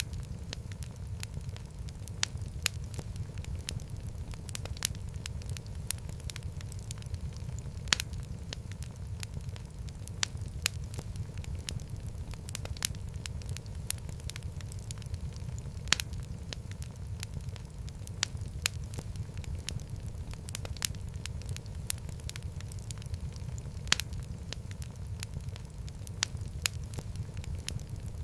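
Wood fire crackling in a fireplace: a steady low rumble of flames under frequent, irregular pops and snaps, with a sharper pop about every eight seconds.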